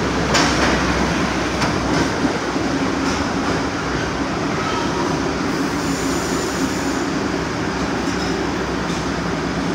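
An R62A subway train on the 1 line pulls in along the station platform, with a steady rumble of steel wheels on the rails. A few sharp clacks as the wheels cross rail joints come in the first seconds and again near the end.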